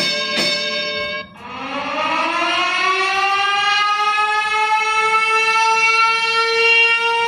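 Sound effect played back: a held note stops just over a second in, then a siren-like tone winds up in pitch over about two seconds and holds steady.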